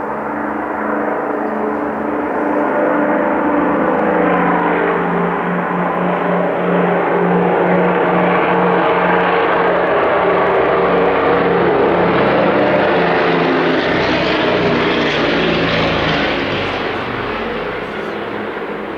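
Canadair CL-215 water bomber's twin radial piston engines at takeoff power, a loud propeller drone that grows louder over the first few seconds, holds, then fades toward the end as the aircraft passes and climbs away.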